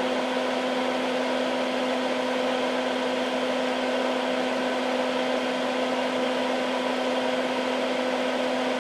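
Steady motor-and-fan hum of a Hakko smoke absorber (a bench fume-extractor fan) running: a constant low hum over an even rush of air.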